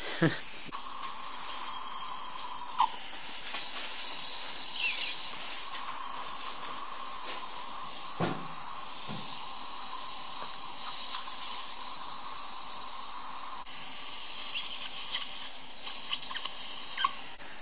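Dental surgical suction hissing steadily at the patient's mouth, with a few short louder sounds over it.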